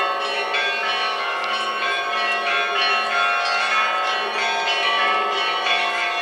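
Orthodox church bells pealing: several bells struck in quick, continuous succession, their tones ringing on over one another.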